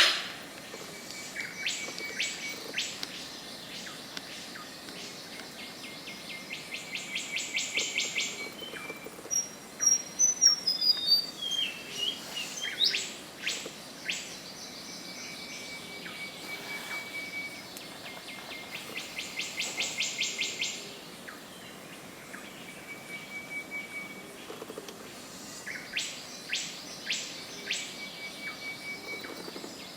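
Mountain rainforest birds and insects: fast pulsing trills that swell in loudness several times, short steady whistled tones, and, about ten seconds in, a run of whistled notes falling in pitch.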